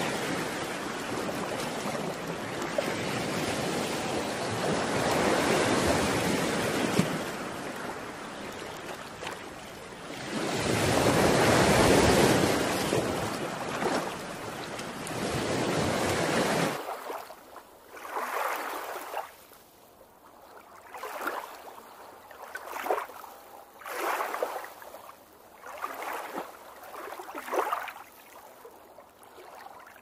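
Surf washing onto a shore in rising and falling surges. About seventeen seconds in, it drops to a quieter run of short separate swishes, roughly one every second or so, like small waves lapping.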